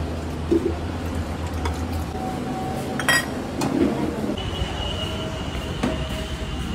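Dishes and utensils clinking: several sharp clinks over a steady low hum, the loudest clink about three seconds in.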